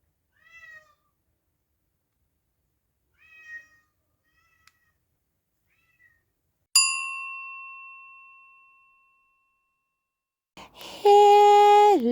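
A cat meowing, two clear meows and a couple of faint ones, then a single bell ding that rings out for about two seconds. Near the end comes a loud held tone with many overtones, which drops in pitch just at the close.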